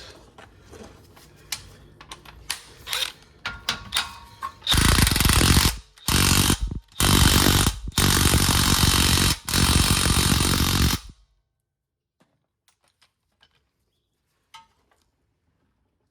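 Impact wrench with a 17 mm socket tightening a nut on a newly fitted tie rod, in five loud hammering bursts, after a few light clicks of the socket going on.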